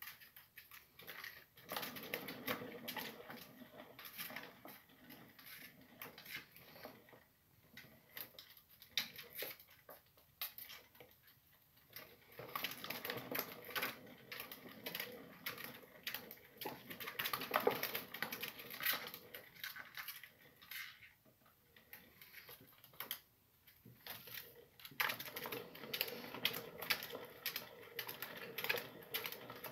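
Plastic exercise wheel spinning under a running sugar glider, making a fast, continuous clicking in spells, with short lulls where the running eases.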